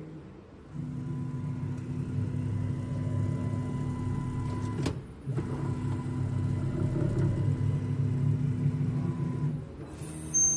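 Motors of an automated oligo purification instrument running as the pipetting head and plates move: a steady mechanical hum that stops with a click about five seconds in, restarts half a second later and drops away near the end. A short high tone sounds just after it drops away.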